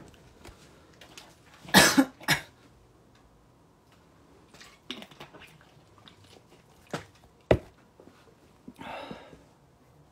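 A man coughs twice in quick succession about two seconds in. Later come two sharp taps and a short rushing noise near the end.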